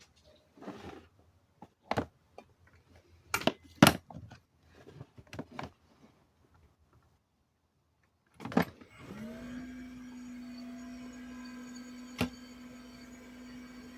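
Several handling knocks and clicks, then the Kawamoto NF2-250S well pump's electric motor switches on about eight and a half seconds in, spins up and runs with a steady hum. The seller calls its running sound abnormal. There is a single sharp tap about twelve seconds in.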